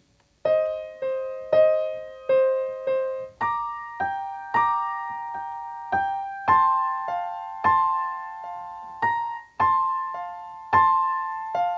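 Solo piano playing the introduction to a song: a steady pulse of chords, about two a second, each struck and fading. It starts about half a second in.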